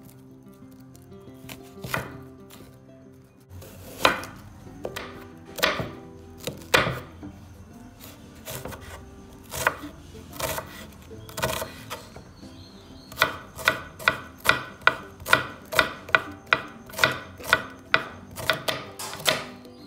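Steel cleaver chopping a red onion on a wooden board: separate knocks of the blade on the wood at first, then a fast, even run of chops, about three a second, over the last third.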